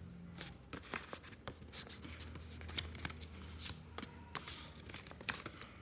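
Hands handling small packaged merchandise items, making faint scattered clicks, taps and light rustles of packaging.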